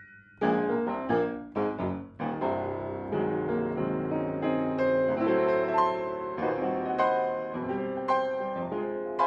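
Piano music accompanying a silent film: a brief pause just after the start, then a run of struck notes and chords playing on steadily.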